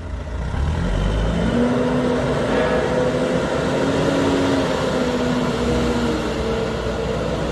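BULL HD100 backhoe loader's diesel engine running, its pitch rising about a second in and then wavering up and down as the engine speed changes.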